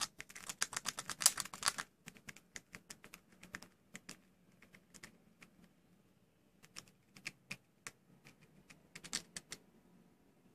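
A squirrel gnawing and chewing a nut held in its paws: a fast run of sharp crunching clicks for the first two seconds, then slower, scattered clicks.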